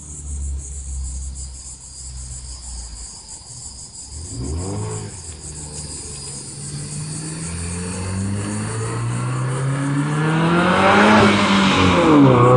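2015 Subaru WRX's turbocharged flat-four, breathing through a new aftermarket exhaust, accelerating toward and past the listener. A quick rev about four seconds in, then the engine note climbs steadily in pitch and grows loud, and drops in pitch as the car goes by near the end.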